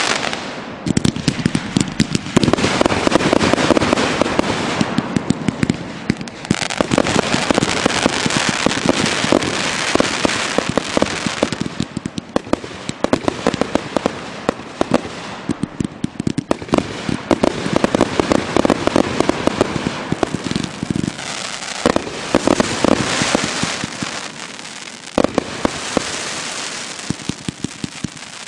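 Consumer aerial fireworks going off in fast, loud volleys: launch thumps and overhead bursts with crackling stars, broken by a few short lulls.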